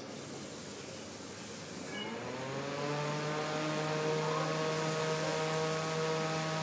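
Delta 120 mm 12 V dual-ball-bearing brushless computer fan starting up. About two seconds in, a whine of several tones rises in pitch and settles into a steady hum with a rush of air as the three-blade rotor reaches speed.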